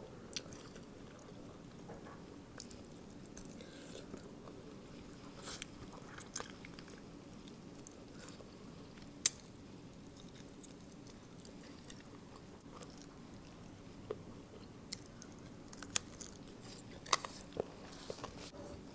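Close, soft eating sounds: chewing and biting on Thai papaya salad with raw vegetables, with scattered sharp clicks and crunches, the loudest about nine seconds in and several more near the end.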